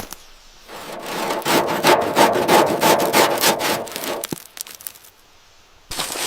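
Rhythmic rasping strokes of a hand tool worked back and forth over a surface, like sawing or scraping, about three strokes a second for some three seconds. It stops with a sharp click, and a burst of crackling starts near the end.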